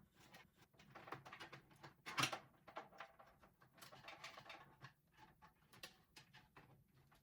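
Faint scattered clicks, taps and rustles of small hard objects being handled, with one louder knock about two seconds in.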